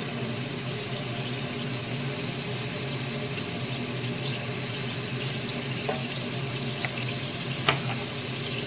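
Steady hiss of meat simmering in a steel pot on a gas stove, with three light clicks in the last few seconds, the last one loudest.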